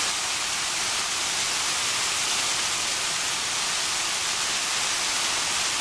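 A steady, even, high hiss that stays at one level throughout, with no other sound.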